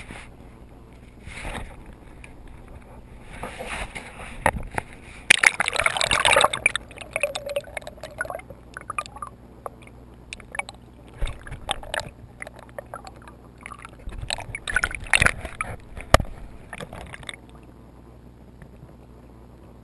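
Action camera in its waterproof housing being handled and dipped into a river: water splashing and gurgling around the housing about five to six seconds in, with irregular knocks and bumps against the case. These stop near the end, leaving a steady low hum.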